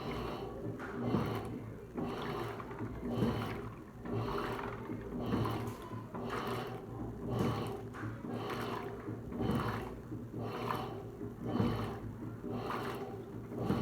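Electrolux LTC15 washing machine agitating a load of clothes, the water sloshing in regular surges about once a second.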